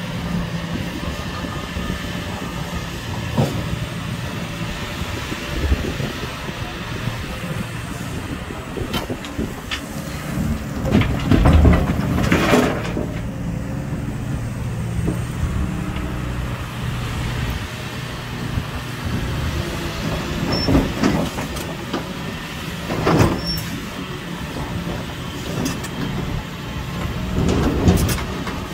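Hitachi Zaxis 470R hydraulic excavator's diesel engine running steadily under load as it digs and swings. Rock loads crash into the dump truck's steel bed, loudest a little before halfway through. Further knocks of rock against the bucket come later.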